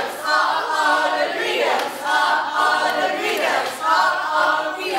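A mixed group of voices singing and chanting a team cheer in unison, phrase after phrase.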